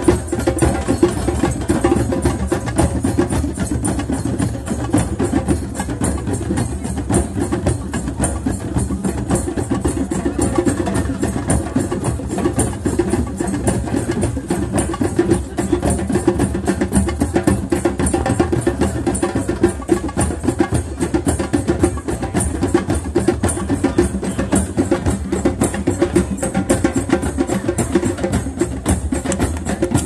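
A drum circle of many hand drums played together in a fast, steady, unbroken rhythm.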